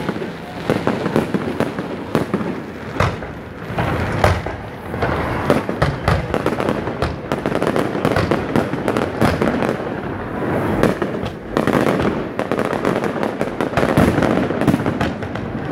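Fireworks display: aerial shells bursting in a rapid, unbroken string of bangs and crackling.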